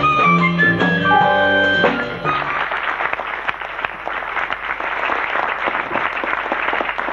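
Harmonica played into a hand-held microphone with other instruments, the tune ending about two seconds in; then an audience applauds.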